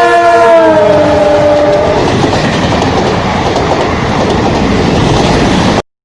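Konark Express locomotive's horn blaring as the train passes close by, its pitch dropping as it goes past and fading after about two seconds. Then comes the loud, steady noise of the coaches and wheels running past on the track, which cuts off suddenly near the end.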